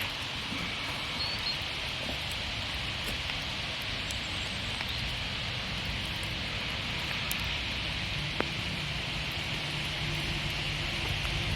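Steady rain falling through woodland, an even hiss with scattered drips and one sharp click about eight seconds in. A faint low hum joins in during the last few seconds.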